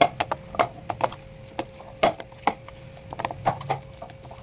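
Wheat dough being kneaded by hand in a stainless steel bowl: a dozen or so irregular, sharp slaps and knocks of the oiled dough and hand against the bowl.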